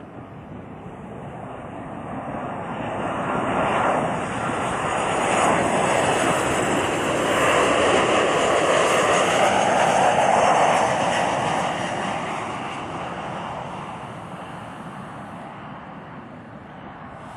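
Jet airliner passing close by, its engine noise swelling to a peak around the middle and then fading away, with a high whine over the rush.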